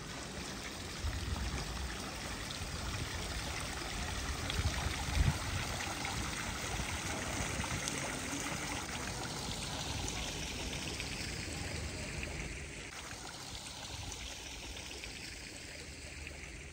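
Steady rushing of running water, rising about a second in and easing a little after about twelve seconds, with a few low thumps, the strongest about five seconds in.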